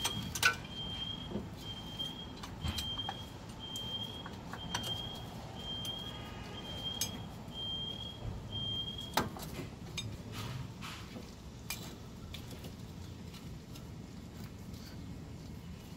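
Metal hand tools clinking and knocking on a car's front brake caliper bracket as a wrench is worked on it, with a sharp click about half a second in and a louder knock about nine seconds in. A high beep repeats about twice a second and stops about nine seconds in.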